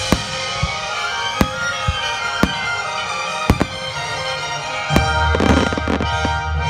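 Aerial fireworks shells bursting: a string of sharp bangs about every half second to a second, with a burst of crackling a little past five seconds in, over music with long held notes playing throughout.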